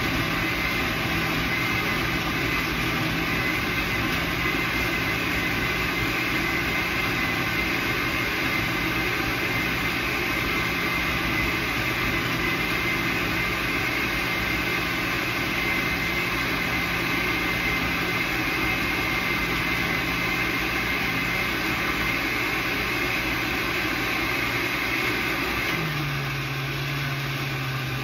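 A steady motor hum with a thin high tone over it; its low note drops in pitch near the end.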